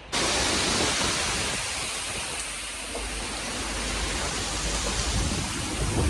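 Heavy hurricane rain and wind: a dense, steady hiss that starts abruptly, with a low rumble building about halfway through.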